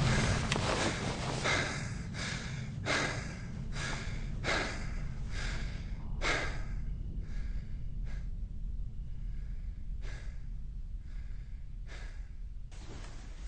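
A man's heavy, frightened breathing: short, ragged breaths about two a second at first, slowing and growing fainter, over a steady low rumble.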